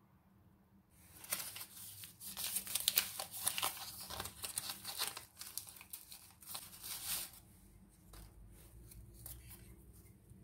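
Packaging being torn open and crinkled by hand: a dense crackling rustle that starts about a second in and stops about seven seconds in, followed by a few faint handling sounds.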